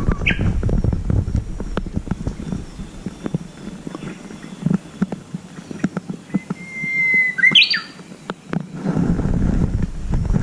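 Japanese bush warbler (uguisu) singing its spring song: a long steady whistle a little over six seconds in, ending in a quick higher flourish. Wind on the microphone is heavy at the start and near the end, with scattered light ticks throughout.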